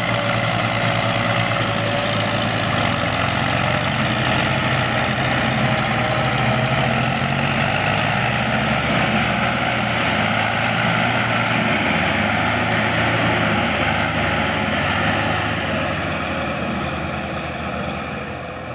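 Belarus tractor's diesel engine running hard and steady under load while it tows a stuck tractor out of a wet field. It fades over the last few seconds as the tractors move off.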